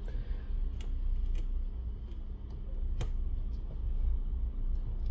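Small sharp clicks and ticks of metal tweezer tips against an opened smartphone's internal parts, a few at irregular intervals with the clearest about three seconds in, over a steady low hum.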